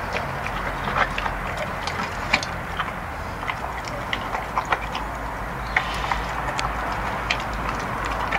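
A border collie–Rottweiler cross eating from a steel bowl: irregular sharp clicks and knocks, a few a second, of chewing and of the bowl, over a steady background hiss.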